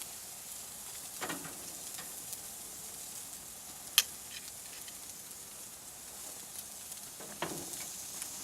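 Seasoned steaks sizzling steadily on a hot barbecue grill, with one sharp click about four seconds in.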